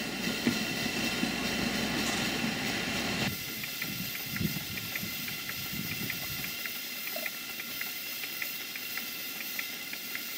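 Stuart Twin Victoria model steam plant running on live steam: a steady hiss of steam with mechanical running noise. About three seconds in the sound changes abruptly, leaving the hiss with light, regular ticking about two to three times a second.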